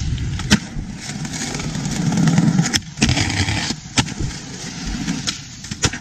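Skateboard wheels rolling over pavement with a steady rumble, broken by several sharp clacks of the board popping and landing.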